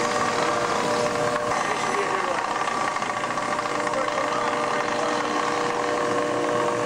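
Ship's engine and deck machinery running steadily: a constant hum with several held tones under an even noise.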